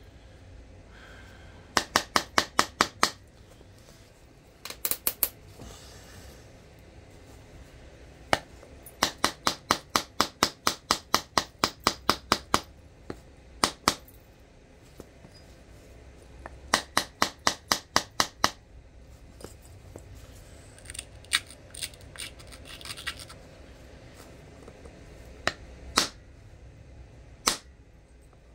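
Flint being worked by hand: sharp stone clicks in quick runs of several a second, three runs with pauses between, then a few single clicks near the end.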